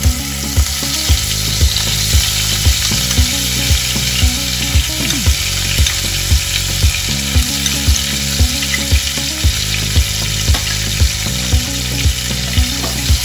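Onion paste sizzling as it fries in hot oil in a non-stick wok. Background music with a steady beat of about two pulses a second plays under it.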